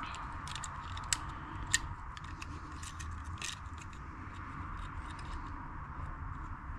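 Scattered small metallic clicks and ticks of hair clipper parts being handled, over a faint steady hum.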